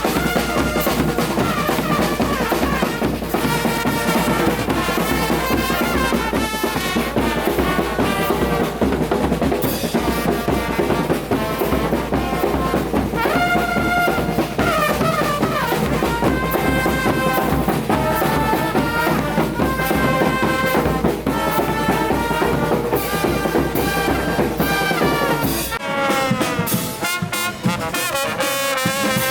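Street brass band playing: trumpets and trombones over drums with a steady bass drum beat. Near the end the drums and deep bass drop out and the horns play on alone, sliding in pitch.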